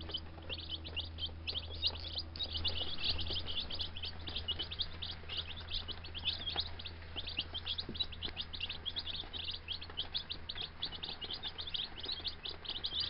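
A brood of about a dozen baby chicks (Gold Star, Rhode Island Red and Buff Orpington) peeping continuously, many short high peeps overlapping, over a faint low hum.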